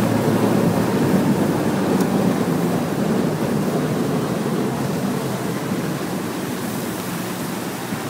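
Boat motor running steadily as the aluminium boat travels across the water, with wind on the microphone; the sound gradually gets quieter over the second half.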